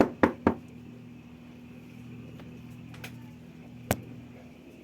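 Quick sharp knocks on a hard surface, the last two in the first half second, then a steady low electrical hum, with one sharp click about four seconds in.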